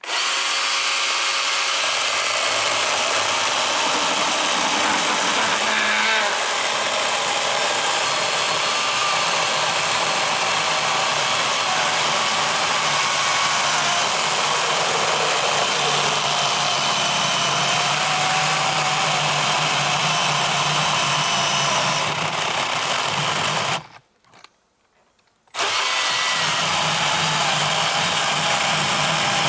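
Milwaukee M18 Fuel 18-volt battery chainsaw with a 16-inch bar cutting through a log, a steady motor whine with the chain running through the wood. The saw stops for about a second and a half near the end, then starts again.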